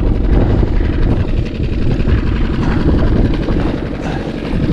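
Small outboard motor running under way, with heavy wind rumble on the microphone and water splashing against the inflatable boat's hull in a choppy sea.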